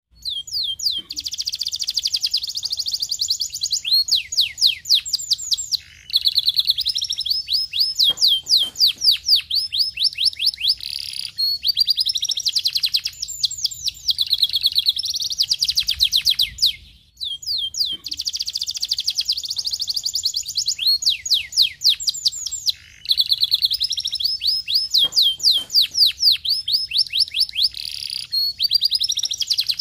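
Domestic canary singing: long, high-pitched runs of rapid trills, changing from one trill to the next with only short pauses between phrases. After a brief break about halfway through, the same song sequence starts again.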